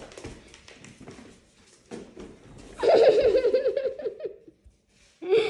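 A person laughing: a high, rapid giggling run about three seconds in that lasts over a second, with a short burst of voice near the end. Soft knocks and rustles come before it.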